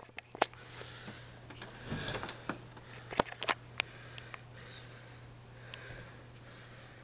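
Quiet handling sounds: a few sharp clicks, the loudest a quick cluster about three seconds in as a door's knob and latch are worked and the door is opened, with sniffing breaths close to the microphone over a steady low hum.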